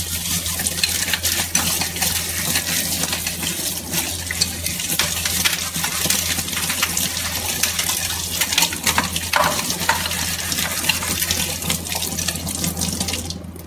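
Tap water running in a steady hiss onto a stainless steel pressure cooker lid held under the stream in a steel sink, splashing, with many small clicks. The water stops near the end.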